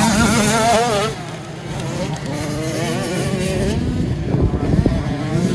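85cc two-stroke motocross bike engines revving up and down. Loud at first, the sound drops away about a second in, then builds again as the revs rise.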